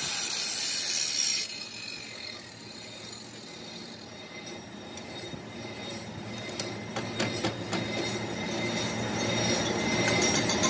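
Hand angle grinder grinding the steel arm of a truck differential spider shaft held in a lathe chuck, stopping abruptly about a second and a half in. After that comes a quieter steady workshop hum, with a few sharp metallic clicks and clinks a few seconds later as the spider is released from the chuck.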